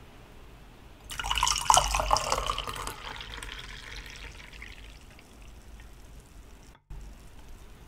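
Close-miked wet mouth sounds of eating or drinking. A clicky, liquid burst starts about a second in, lasts about two seconds, then fades away.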